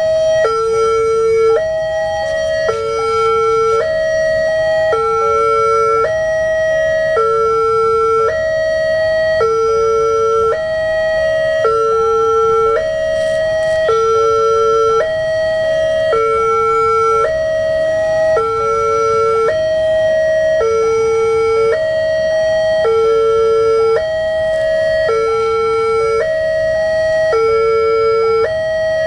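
Indonesian railway level-crossing electronic alarm sounding its two-tone warning while the barriers are down for an approaching train, switching between a high and a low tone about every three-quarters of a second. The crossing's two alarm units sound together, slightly out of step.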